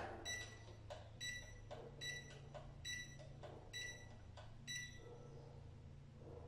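MAADOK X1 smart lock's built-in beeper giving six short, high beeps about a second apart, one for each press of its reset button, with faint clicks between them. The presses are the button sequence that restores the lock to factory settings.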